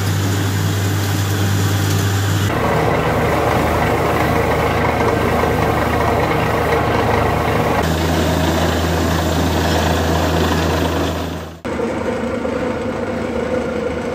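Borewell drilling rig's diesel engine running steadily with a low hum, in several clips that cut abruptly to a different engine tone about 2.5, 8 and 12 seconds in.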